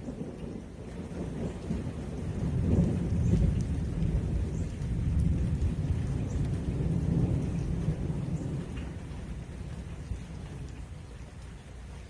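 Thunder rolling in a long low rumble that swells about three seconds in and fades away near the end, with rain falling throughout.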